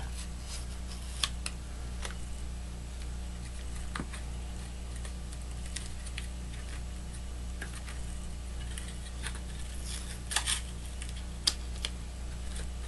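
Glass mirror strips and painter's tape being handled on a workbench: scattered light clicks and taps, with a short cluster about ten seconds in, over a steady low hum.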